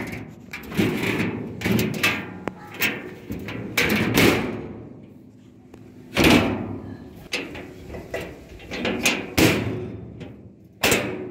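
Irregular thuds and knocks on a Piaggio Ape pickup's sheet-steel platform floor, about ten in all, some ringing briefly. The loudest come about six seconds in and just before the end.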